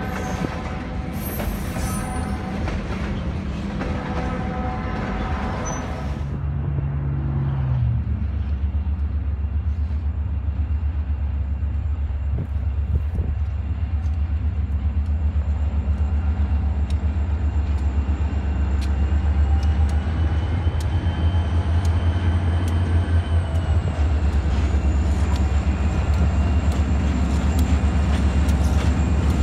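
Freight cars rolling past for the first few seconds. Then a diesel freight locomotive, Boston & Maine 326, working at full throttle in notch 8 as the only unit online, its deep engine rumble growing louder as it approaches.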